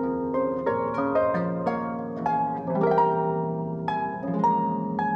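Concert pedal harp played solo: a flowing line of plucked notes, several a second, each ringing on and overlapping the next.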